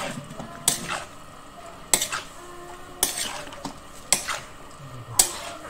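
Raw mutton, onions, tomatoes and spices being stirred together in a metal kadai, with a sharp metal clank of the pan about once a second.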